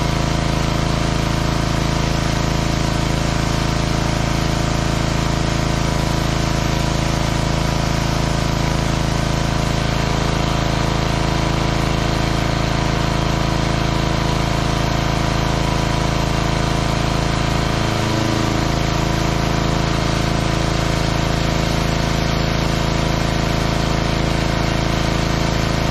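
Small gasoline engine of a pressure washer running steadily under load, with the hiss of its water jet spraying the truck.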